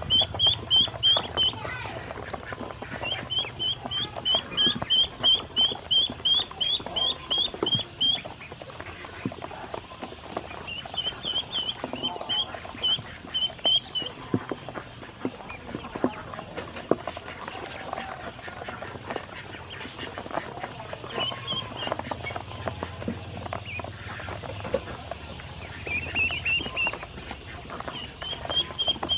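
Ducklings peeping in runs of short, high chirps, several a second, that come and go. Throughout, small taps and clicks of their bills pecking at feed on the bottom of a plastic basin.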